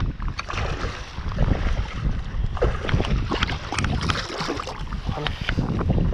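Sea water lapping and splashing around a wading angler's waders, with irregular small splashes, while wind rumbles on the microphone.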